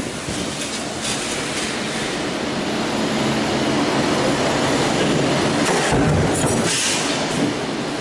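Large stamping press with a multi-station deep drawing die running, giving a steady, loud mechanical noise. A hiss rises briefly about six seconds in.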